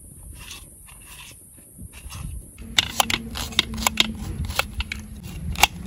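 Kitchen knife chopping onion and tomato on a steel plate. From about two and a half seconds in, the blade strikes the metal in quick, irregular clicks.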